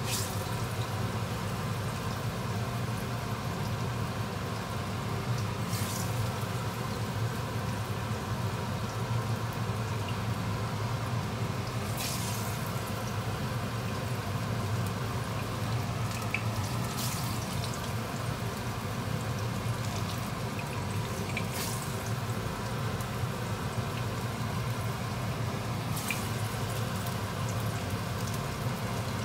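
Plantain slices frying in shallow oil in a nonstick pan: a steady sizzle over a low hum. The sizzle flares briefly every few seconds as another slice is laid into the hot oil.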